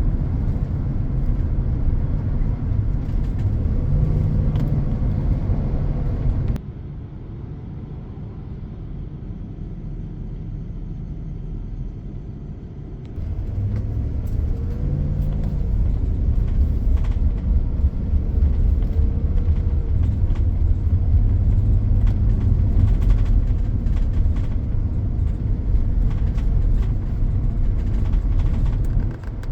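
Low, steady rumble of road traffic and heavy engines. It drops suddenly to a quieter rumble about six seconds in and comes back loud about thirteen seconds in.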